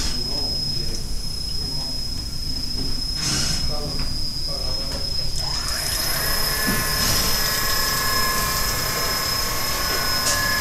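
1988 Vulcan 2814 CNC milling machine running with a steady high whine and low rumble, with a couple of short knocks in the first few seconds. About six seconds in, a higher multi-tone mechanical whine with hiss comes in and holds steady.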